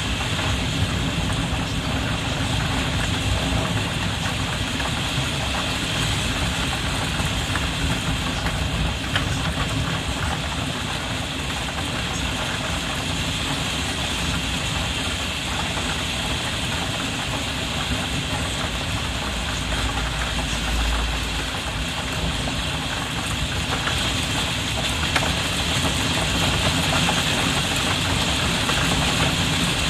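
Heavy rain drumming steadily on a roof skylight, heard from inside the room below: a dense patter over a constant low rumble. A brief deeper rumble comes about two-thirds of the way through.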